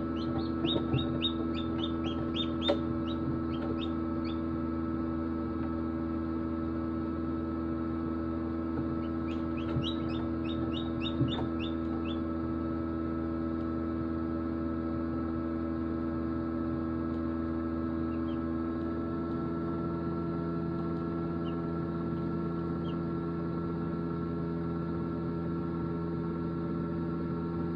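Hatchlings peeping in quick runs of high peeps, one run at the start and another about ten seconds in, with a couple of sharp taps, over the steady hum of an egg incubator.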